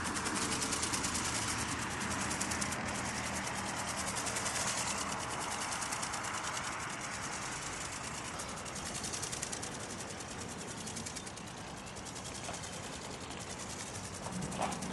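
Small electric motor and flapping-wing gearbox of a radio-controlled ornithopter buzzing overhead as a fast, fine rattle that swells and fades as it circles, over a low steady hum.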